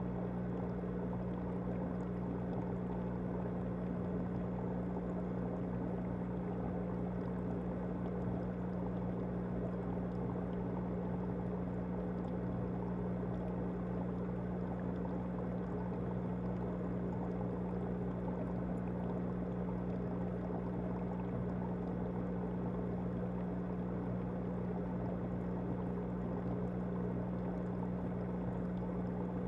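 Aquarium pump humming steadily, with a constant low drone and a haze of moving water over it.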